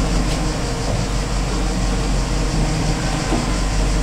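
Steady low drone of a tourist submarine's machinery running, heard inside its cabin.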